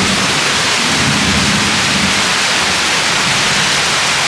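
Heavy rain pouring down in a thunderstorm, a steady loud hiss, with a low rumble underneath through the first three seconds.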